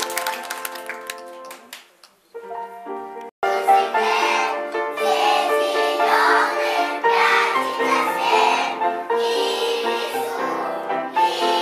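A children's song with instrumental backing and a group of children's voices singing. It starts up fully about three and a half seconds in, after a brief stretch of quieter music.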